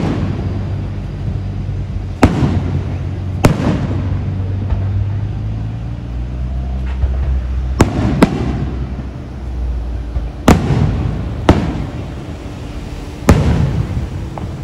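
Aerial fireworks shells bursting overhead: about seven sharp bangs at irregular intervals, each trailing off in an echoing rumble.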